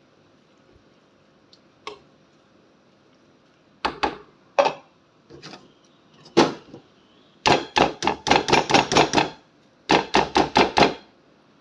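Kitchenware knocking against a stainless steel cooking pot. First come a few single knocks, then two quick runs of taps, the first lasting about two seconds and the second about one.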